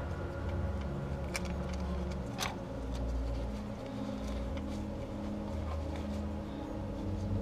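Low background music with steady, shifting bass notes, and a few light clicks from metal engine parts being handled, the clearest about one and two and a half seconds in.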